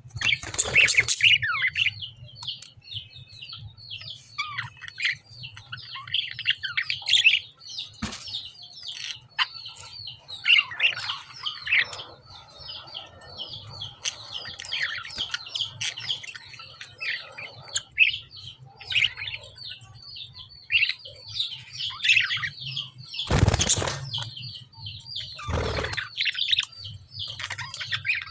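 Caged lovebirds chirping busily, many quick high chirps overlapping without pause. A few louder rustling bursts come about a second in and twice near the end, over a steady low hum.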